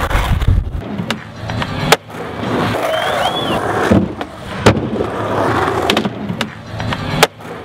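Skateboard wheels rolling on street pavement, broken by several sharp clacks of the board striking the ground.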